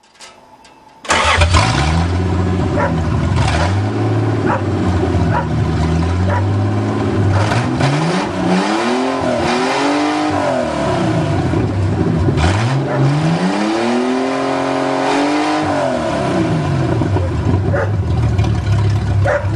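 1982 Toyota Cressida's fuel-injected engine running, just revived after water was flushed out of its fuel system. It comes in abruptly about a second in and is revved up and back down twice near the middle.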